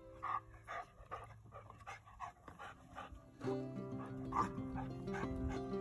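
A young black Labrador retriever giving a string of short, excited yips and whines, over background music that grows louder about three and a half seconds in.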